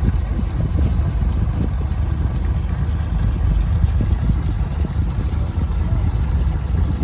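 Steady low rumble of a purse-seine fishing boat's engine and net-hauling machinery running.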